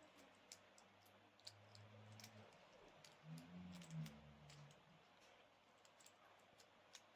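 Near silence with faint, scattered light clicks of a padlock and metal lock picks being handled.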